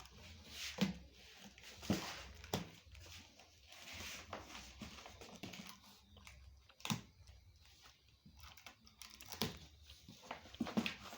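Packaging being torn open and handled: cardboard and plastic wrapping rustling and tearing, with scattered knocks and bumps.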